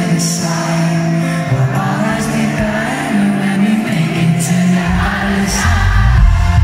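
Live pop band playing, with a sung vocal over electric guitar and bass; a heavier low end of bass and drums comes in about five seconds in.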